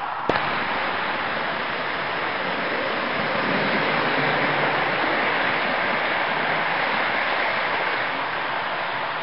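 Model train running past close by, a steady rushing rattle of wheels on track and motor, with a sharp click a fraction of a second in. It swells loudest about four seconds in as the 4-8-4 Northern steam locomotive model and its train go by, then eases near the end.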